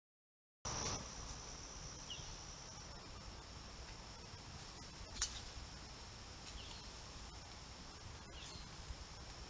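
Evening chorus of crickets, a steady high trill, through a trail camera's microphone with a low hiss underneath. It starts a moment in, with a few short rising chirps and one sharp click about halfway through.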